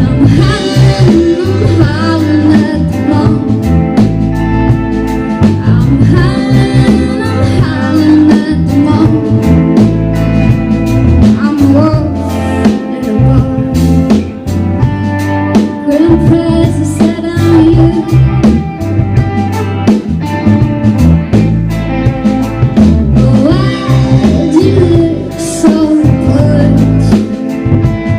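Live band playing a blues-tinged country rock song: guitar, bass and drum kit, with a lead singer.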